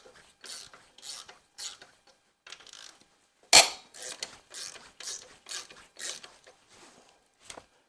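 Ratchet wrench being worked back and forth on a bolt, clicking in short strokes about two a second. One sharp, louder metal knock comes about three and a half seconds in.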